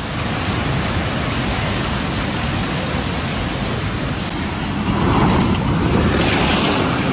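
Floodwater rushing, a loud, steady, even rushing noise that grows a little brighter about five seconds in.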